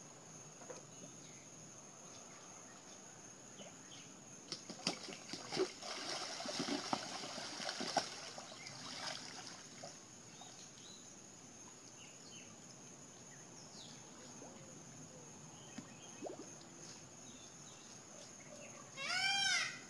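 Water splashing and churning with sharp clicks for several seconds, starting about four and a half seconds in, as an alligator lunges and seizes a turtle in its jaws. A steady high insect drone runs underneath. Near the end comes a brief loud call.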